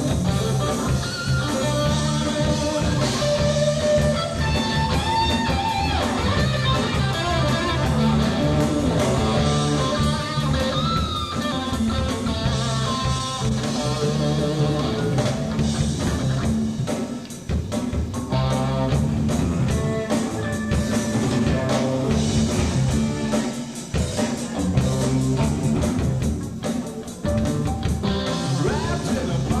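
Rock band playing live in an instrumental passage: a guitar carries the melody over bass and a drum kit.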